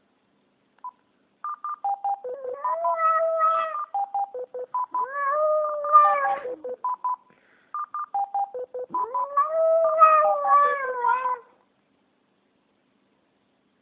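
Japanese Spitz dog howling three long, wavering howls along with a phone playing runs of short beeps at different pitches, like keypad tones. The howling and beeping stop a couple of seconds before the end.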